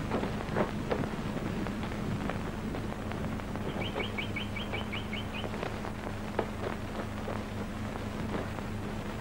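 Steady low hum and background noise with scattered clicks. About four seconds in, a quick run of about eight high chirps, an animal's call lasting under two seconds.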